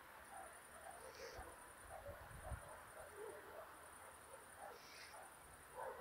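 Faint, very high-pitched chirping of crickets in the grass, repeated short trills about once a second. A few low thumps, the loudest about two and a half seconds in.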